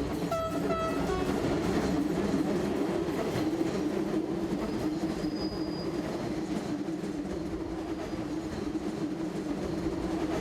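A train running along the railway through Battir, a steady rumble that swells over the first couple of seconds and holds, with two short horn toots near the start.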